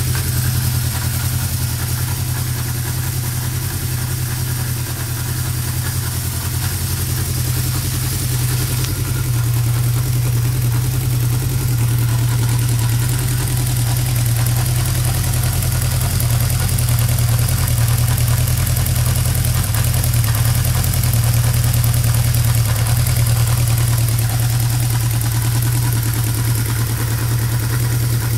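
Honda CB550K's air-cooled inline-four engine idling steadily through its four separate chrome mufflers.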